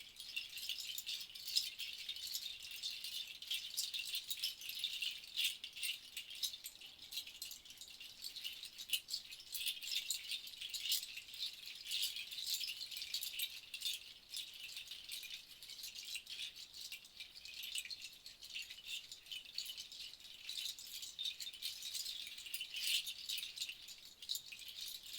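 Seed rattles shaken continuously: a dense, uneven shower of small seeds striking the shells, bright and hissing with no low tones.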